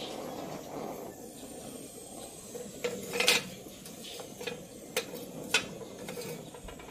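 Gas torch flame hissing steadily while a cast-aluminium part is brazed with aluminium-alloy rod, with four sharp metallic clinks from about three seconds in, the second the loudest.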